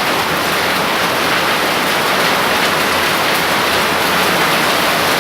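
Heavy rain and hail pouring down in a steady, dense downpour, with faint fine ticking from hailstones striking surfaces.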